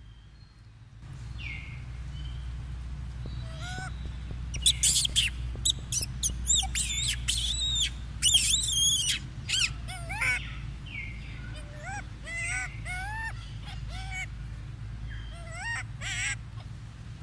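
Small birds chirping, many short up-and-down whistled calls, with a dense run of loud, high, rapid chirps in the middle. A steady low rumble sits underneath and comes in about a second in.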